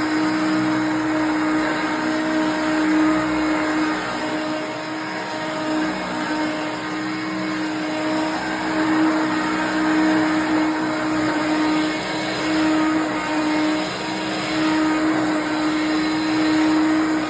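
1988 Hoover Concept One upright vacuum cleaner running, a steady motor hum and airflow rush that swells and dips a little as it works.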